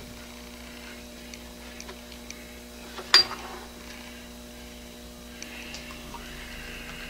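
Steady electrical hum with a few faint ticks, and one sharp click about three seconds in.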